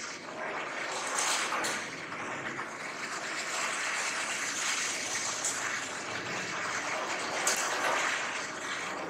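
Squeegee pushing marble-grinding slurry across a wet marble floor: a steady watery swishing with a few short scraping strokes.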